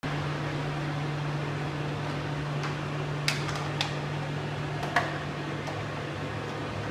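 Steady low electrical hum of a high-frequency plastic sealing machine standing powered between welds, with a few light clicks as plastic blister packaging is handled over its metal die tray, the loudest about five seconds in.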